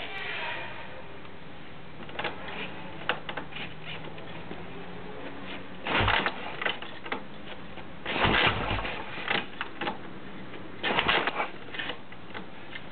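Harley-Davidson Evolution V-twin motorcycle engine running, with a steady mechanical clatter and three louder surges about six, eight and eleven seconds in.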